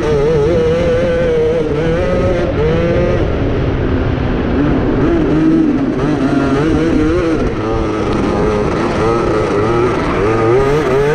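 Onboard sound of a racing grasskart's engine at speed, its pitch rising and falling as the driver works the throttle through the bends, with a drop in revs near the end as the kart slows.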